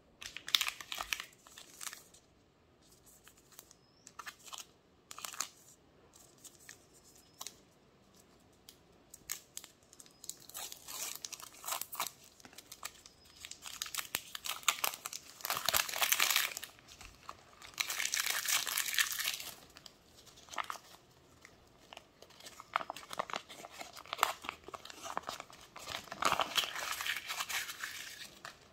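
A Nestlé Classic chocolate bar's wrapper being crinkled and torn open by hand, in irregular bursts of crackling that are loudest about halfway through.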